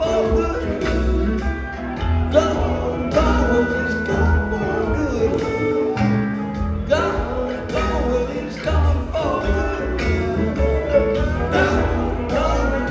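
Live rock band playing a song with singing, over guitar, bass and drums keeping a steady beat.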